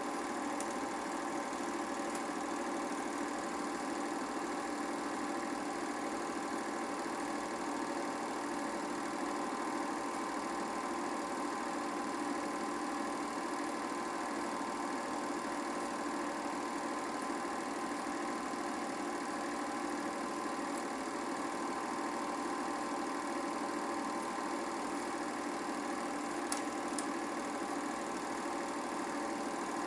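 8mm film projector running: a steady mechanical whirr of motor and shutter that does not change with the picture, with a couple of faint clicks near the end.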